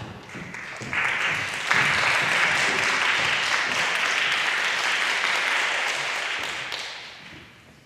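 Audience applauding, building up over the first couple of seconds, holding steady, then fading out near the end.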